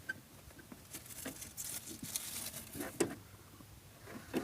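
Plastic heater housing of a VAZ 2109 being handled and pried at: scattered light clicks and rustling, with a sharper knock about three seconds in.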